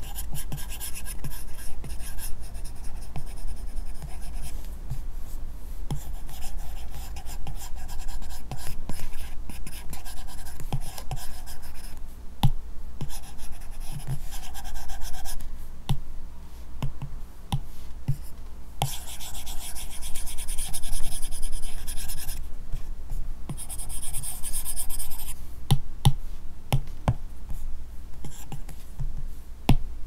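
Apple Pencil tip scratching across an iPad Pro screen covered with a paper-texture film, in short brush strokes with two longer stretches of scratching after the midpoint, broken by light taps of the nib on the glass.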